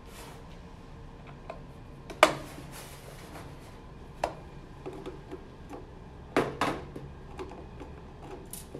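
Phillips screwdriver and stainless-steel housing clicking and knocking against a metal workbench while screws are taken out of the box. A few sharp metallic knocks, the loudest about two seconds in, then one around four seconds and a quick pair around six and a half seconds, with light ticks between.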